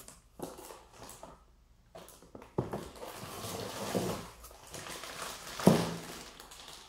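Rustling and handling of packaged products being sorted through in a box, with a sharp knock about two-thirds of the way through.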